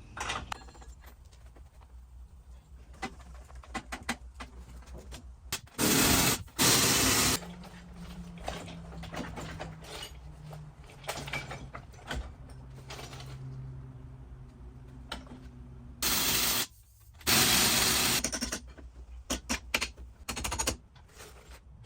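Tool work on a pickup's rear suspension: scattered clicks and clanks of tools and parts, broken twice by a pair of loud hissing bursts each a second or so long, about six and sixteen seconds in.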